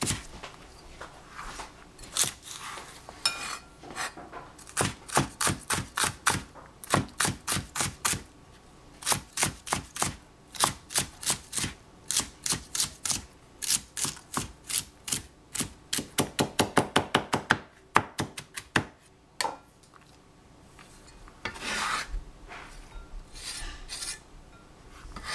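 Chinese cleaver chopping celery finely on a cutting board: quick runs of sharp knocks, several a second, fastest a little past halfway. After a short lull, a few softer scraping sounds near the end.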